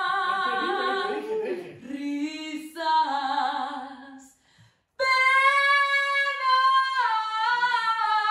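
A woman singing unaccompanied, holding long notes with wide vibrato. About four seconds in the singing fades and breaks off for half a second, then comes back on a higher held note.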